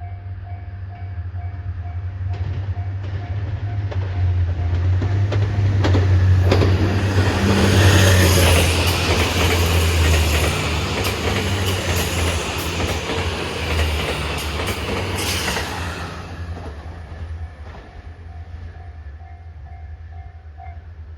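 JR HC85 series hybrid diesel-electric train passing at speed, rising to a loud peak with a rapid run of wheel clicks over the rail joints, then fading. A level crossing bell dings steadily before and after the train goes by; the passing train drowns it out.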